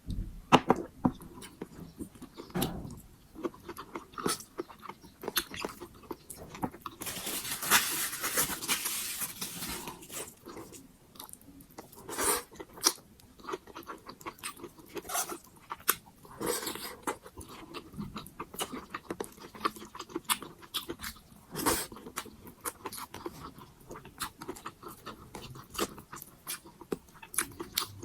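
Close-miked chewing and eating of pork sinigang: irregular wet mouth clicks and soft crunches throughout, with a denser hissing stretch of a few seconds about seven seconds in.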